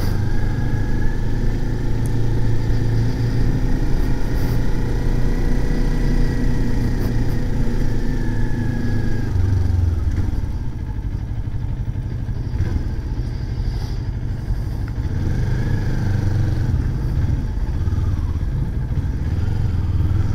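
Kawasaki Ninja 400's parallel-twin engine running at low revs in town riding, a low rumble from its two cylinders that eases off about ten seconds in and then picks up again.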